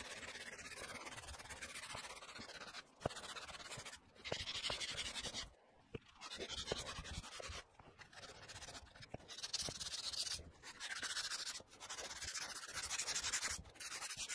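Hands rubbing and brushing over a freshly sanded fiberglass surface, in irregular stretches with short pauses.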